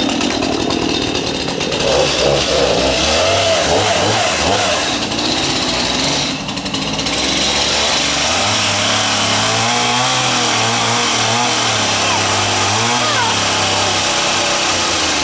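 Gas chainsaw running after a cold start, on half choke at high idle while it warms up; its engine note rises and falls.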